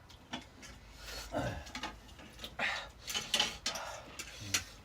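Scattered light clicks and clinks of dishes and cutlery being handled, with a short falling vocal sound about a second and a half in.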